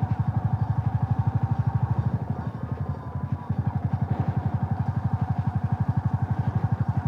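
Motorcycle engine running at low revs with a rapid, even pulsing beat. It dips briefly about two and a half seconds in.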